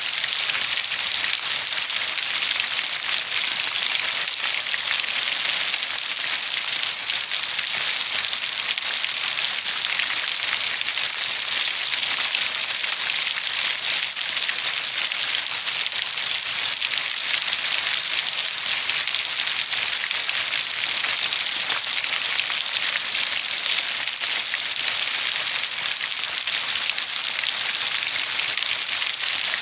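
Steady heavy rainfall, an even hiss of countless drops falling on a surface, with no thunder or other events.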